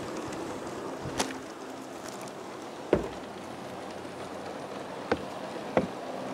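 G-scale model freight train with diesel locomotives rolling along outdoor track: a steady low rumble of wheels and motors, broken by four sharp clicks.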